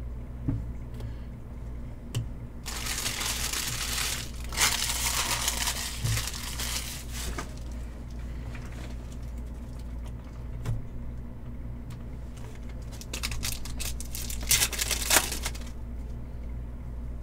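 Trading-card pack wrapper crinkling as it is torn open and handled, in two stretches of rustling, one a few seconds in and one near the end, over a steady low hum.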